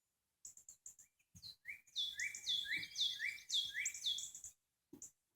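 A songbird singing outdoors: a quick run of about five repeated two-note phrases in the middle, with short high chirps scattered before and after.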